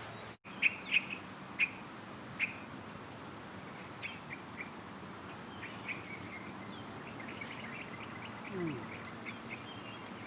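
Steady high-pitched drone of insects such as crickets or cicadas. Birds chirp over it, with a few louder chirps in the first couple of seconds and a run of quicker, softer ones later.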